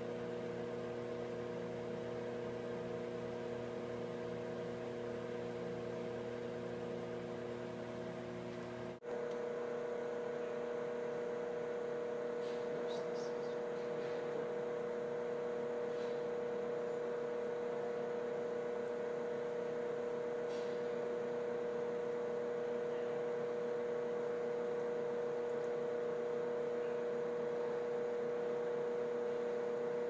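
Steady electrical-mechanical hum of the running flow visualization table, several fixed tones held without change. About nine seconds in it cuts off abruptly and comes straight back with a slightly different mix, one tone standing out, with a few faint ticks later.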